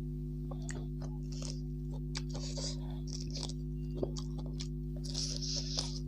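Close-miked chewing and wet mouth sounds of a person eating rice and flatbread, with scattered sharp clicks and smacks, the sharpest about 4 s in. A steady low hum runs underneath.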